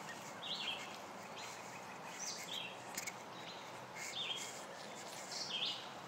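Short, high calls from a small animal, repeated about every one to two seconds over a steady outdoor background hiss.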